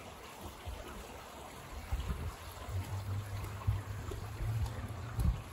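Outdoor ambience: an even hiss, with wind buffeting the phone's microphone in an uneven low rumble from about two seconds in.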